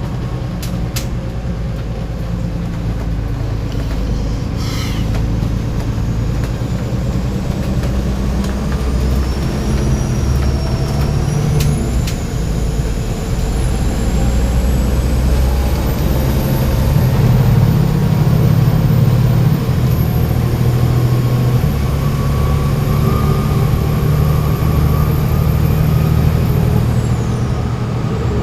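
Volvo B7TL bus's six-cylinder turbodiesel engine running under way, with a high turbo whistle that rises about a third of the way in, holds, and falls away near the end. A brief air hiss sounds about five seconds in.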